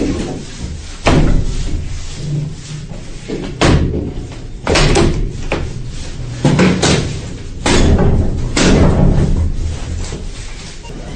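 Repeated bangs and scraping on a lift floor as a man strikes at it with a hand tool: about eight sharp knocks at irregular intervals, with rough scraping between them.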